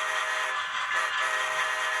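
Horn of an HO-scale GE Dash 9 model locomotive, played by its LokSound V5 sound decoder through the model's small speaker. The horn cuts off about half a second in, gives a short blast, then a longer one, over the decoder's steady diesel prime-mover sound.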